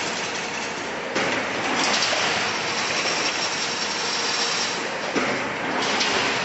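Single-wire fully automatic chain link fence weaving machine running: a steady mechanical clatter of the weaving head and sprocket-driven mesh rolling, with a sharp knock about a second in and another about five seconds in.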